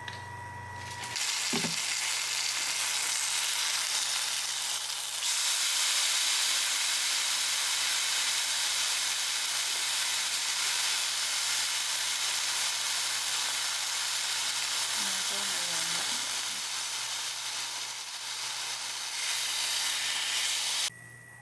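Food sizzling in a hot frying pan: a dense, steady sizzle that starts abruptly about a second in and cuts off just before the end.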